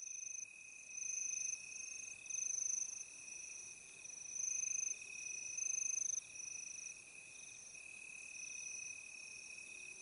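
Crickets chirping: a steady high trill with a second, higher trill that comes and goes in spells of about a second.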